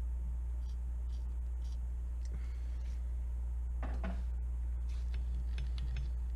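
Short hiss of an aerosol WD-40 can spraying penetrating lubricant onto a corroded musket barrel pin, then a knock around four seconds in and a few light clicks of handling, all over a steady low hum.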